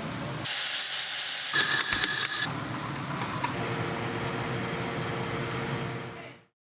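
Espresso machine: a loud burst of steam hiss lasting about a second, a few clicks and clatter, then a steadier hiss and hum with a low tone while espresso pours into the shot glasses. It all fades out near the end.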